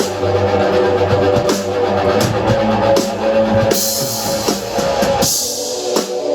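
Live rock band playing: sustained guitar chords over drums, with a wash of crash cymbals about four seconds in, after which the bass drops out for the last second.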